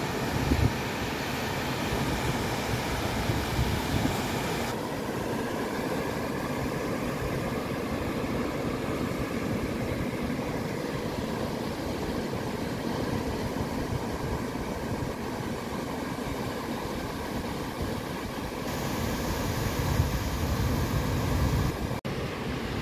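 Ocean surf breaking and washing up a sandy beach, a steady rushing noise that swells a little now and then.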